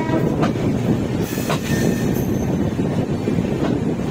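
Passenger train heard from aboard while it runs along the track: a steady rumble of wheels on rail, with a few sharp clicks.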